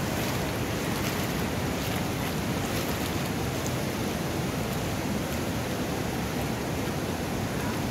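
Steady rushing of a fast-flowing, monsoon-swollen river, an even noise with no breaks.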